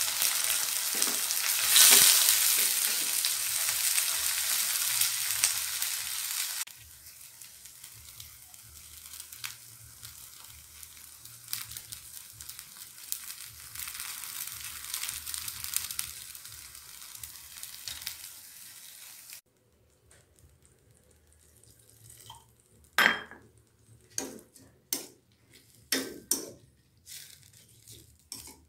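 Bean sprouts sizzling in a hot stainless-steel wok. The loud sizzle cuts off suddenly about seven seconds in and carries on more faintly. Near the end, a spoon knocks and scrapes against the wok several times as the sprouts are stirred.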